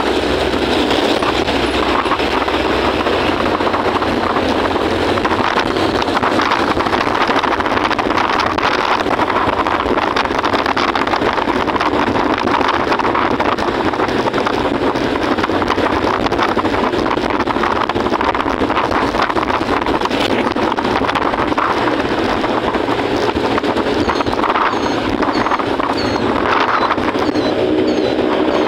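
Motor scooter ride in traffic, heard from the rider's seat: a steady, loud rush of engine, tyre and wind noise.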